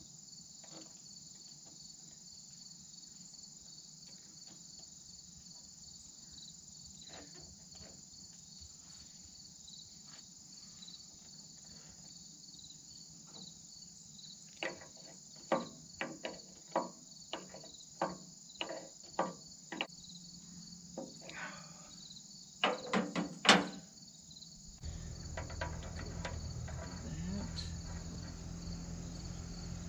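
Crickets chirping steadily, with a run of sharp metal clicks and knocks from about halfway in as a wrench works the hydraulic fittings on a diverter valve, the loudest cluster a little before the end. A low steady hum comes in shortly before the end.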